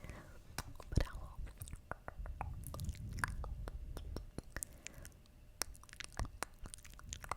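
ASMR mouth sounds close to the microphone: many quick, irregular wet clicks and smacks.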